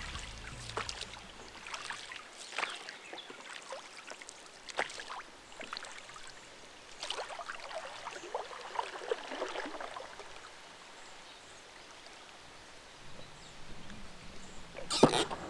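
Light, scattered splashes and drips of river water around a small inflatable packraft. Music fades out at the start, and a single sharp knock comes near the end.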